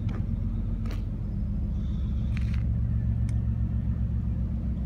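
An engine idling with a steady low drone and a regular throb, with a few faint clicks over it.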